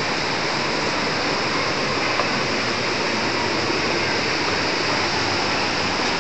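River rushing over rocks and rapids: a steady, even rush of white water.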